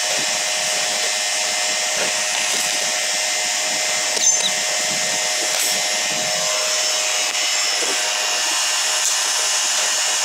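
Steady, loud whir of an electric motor-driven machine running with a constant hum, with one brief knock about four seconds in.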